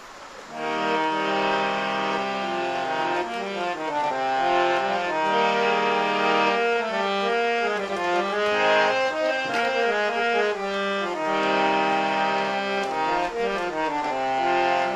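Harmonium played solo: held chords with a melody moving over them, starting about half a second in.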